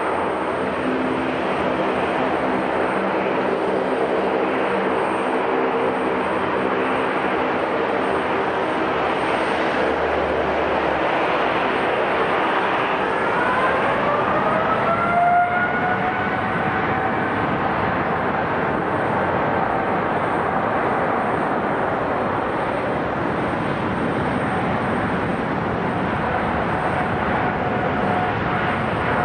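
Airliner jet engines running loud and steady. About 13 seconds in, a whine rises in pitch and levels off as the engines spool up.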